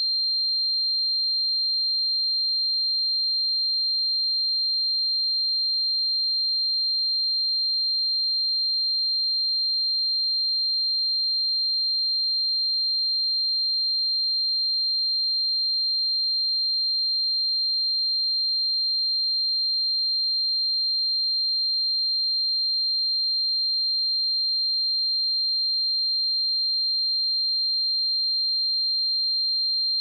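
A pure 4176 Hz sine-wave test tone, one steady high-pitched note held at constant pitch and level with nothing else.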